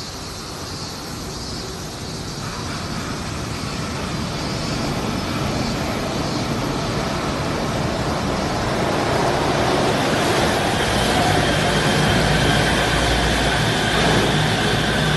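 Suspended monorail train approaching and pulling into the station, its running noise growing steadily louder, with a steady whine and a low rumble joining in about two-thirds of the way through as it comes alongside.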